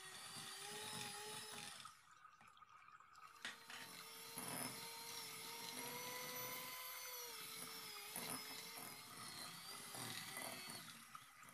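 Electric hand mixer beating cake batter in a glass bowl: a steady motor whine that wavers a little in pitch as the beaters work the mix. It stops about two seconds in and starts again a second and a half later, with a few knocks along the way.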